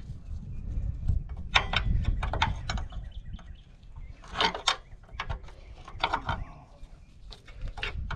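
Cat 953C track loader working, its steel tracks and linkage clicking and clacking irregularly over a low rumble that eases off after about three seconds.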